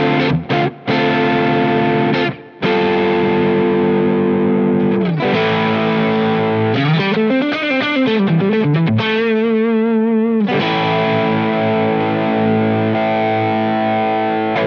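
UMEDA UST QM24 super-strat electric guitar played with heavy distortion on its neck pickup in split-coil mode. Held chords are cut off sharply a few times in the first seconds; around the middle come bent notes that rise and fall in pitch, then notes shaken with wide vibrato; held chords return for the last few seconds.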